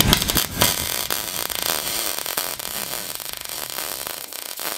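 MIG welding arc on thin aluminium, striking at the very start and then running with a continuous fizzing crackle as the bead is laid.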